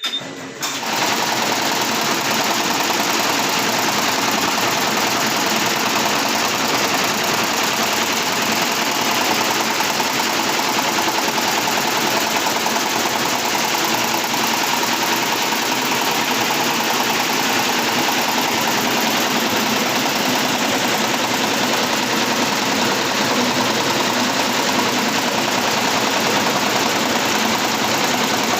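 Computerized embroidery machine starting up about a second in, then stitching steadily at speed with a rapid, even needle rhythm.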